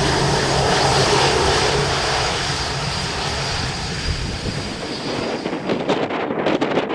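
Jet engines of a Boeing 787-9 Dreamliner running with a steady roar and a faint high whine, fading away after about five seconds as gusty wind buffets the microphone.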